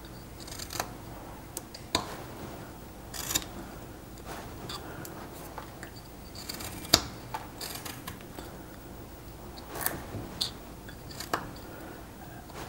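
Carving knife being pushed straight into a basswood block and cutting off small chips, making irregular short clicks and snaps as each cut goes in and the chips break free.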